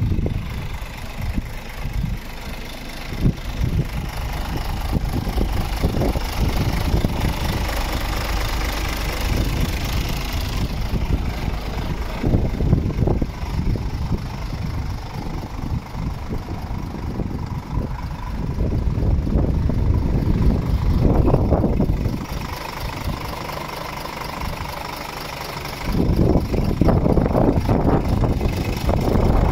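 Scania R450 truck's 13-litre inline-six diesel engine idling, growing louder about three and a half seconds before the end.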